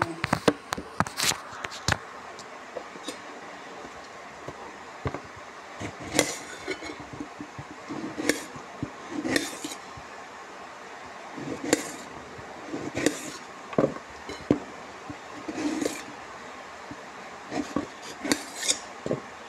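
Kitchen utensils and steel vessels being handled: irregular knocks and clinks, some with a short metallic ring, with a quick run of clicks in the first two seconds.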